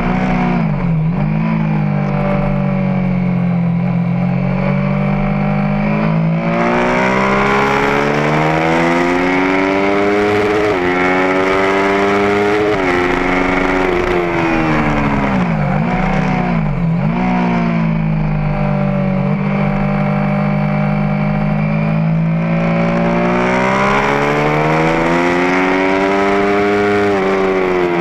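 Triumph Speed Triple's three-cylinder engine heard from on board at track speed, with wind rushing over the microphone. It pulls up through the revs with short drops at upshifts, falls away with quick blips on the downshifts into a corner around the middle, then pulls hard again and drops off near the end.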